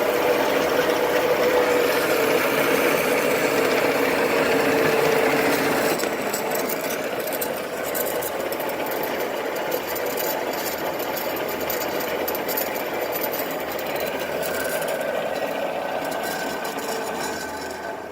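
Marvel 8 tilt-frame vertical band saw running steadily: motor and blade drive with a mechanical rattle. About six seconds in the sound changes and drops a little, and it begins to die away at the very end.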